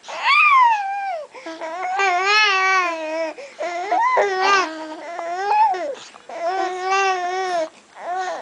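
A baby vocalizing in about five long, high-pitched, drawn-out sounds whose pitch wavers up and down, his reaction to a first spoonful of puréed carrots.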